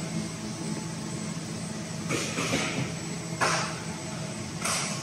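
Automated assembly machine running with a steady low hum, broken several times by short hisses typical of pneumatic valves venting compressed air.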